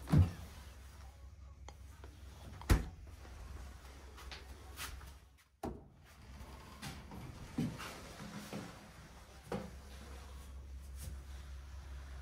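Wooden cabinet and room door handled by hand: a few sharp knocks and clicks, the two loudest in the first three seconds, with a latch click about halfway through and softer knocks later, over a steady low hum.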